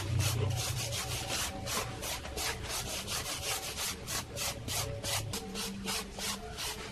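Rhythmic back-and-forth scraping of a hand tool on a hard surface, about four strokes a second.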